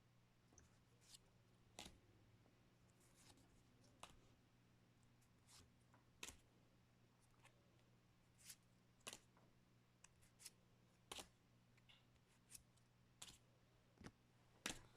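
Pokémon trading cards being flipped and handled: faint, scattered soft clicks, roughly one a second, over a faint steady hum.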